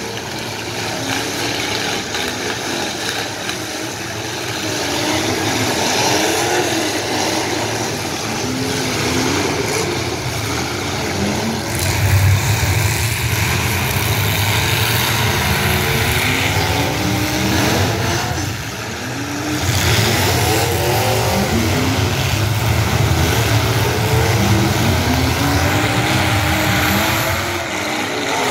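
Demolition derby cars' engines revving up and down, several at once, over a low rumble that grows louder about twelve seconds in.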